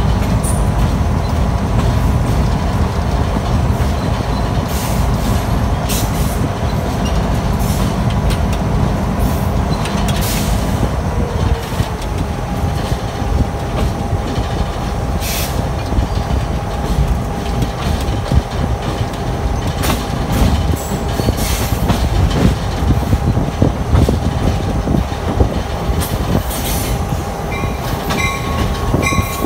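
Diesel locomotive running along the track, heard from its front platform: a steady engine rumble with the wheels clicking over rail joints. The engine note drops about twelve seconds in. Near the end, a repeating ringing warning signal starts.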